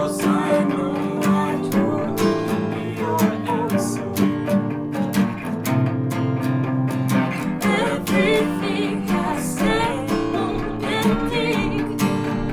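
Small band playing live into a single microphone: a strummed rhythm guitar with a lead guitar and viola over it. A wavering melody line stands out from about eight seconds in.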